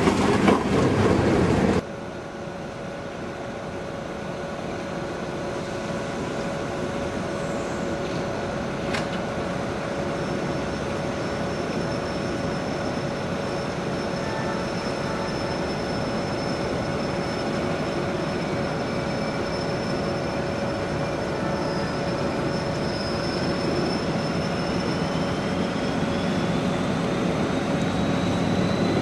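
Model train running on the layout track: a steady rolling rumble with a steady hum, loud for about the first two seconds and then dropping suddenly to a quieter level. A thin whine rises slowly in pitch over the last several seconds.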